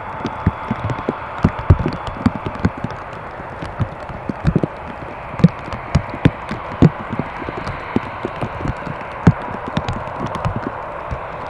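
Steady rushing airflow and engine noise inside a flying Airbus A319-112, with a faint steady tone. Irregular low thumps and knocks come several times a second over it.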